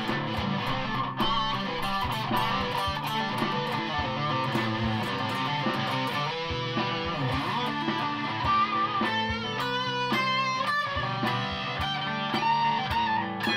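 Strat-style electric guitar fitted with a Telecaster pickup, played through an amplifier: chords and riffs, turning to quicker picked single-note lines in the second half.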